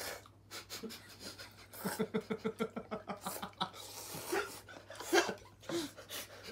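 Ramen noodles being slurped and eaten in quick bursts between heavy breaths. In the middle there is a rapid run of short voiced huffs, about six a second, lasting a second and a half.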